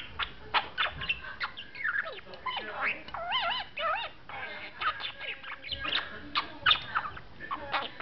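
Budgerigar chattering: a fast, busy run of clicks and short chirps, with wavering warbled notes about three seconds in, the budgie's attempts at talking mixed into the chatter.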